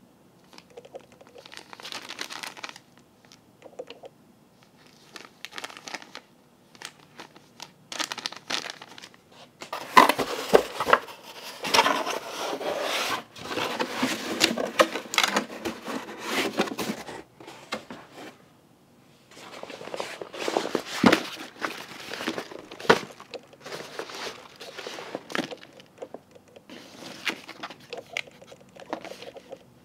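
Plastic packaging crinkling and fabric rustling as a new tote bag is unpacked and handled, in irregular bursts with small clicks; the handling is loudest and busiest through the middle stretch.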